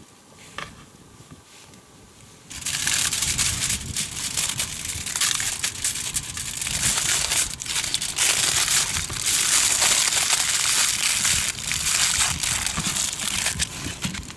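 Loud, irregular crinkling and crunching noise that starts abruptly about two and a half seconds in and goes on to the end, full of sharp crackles.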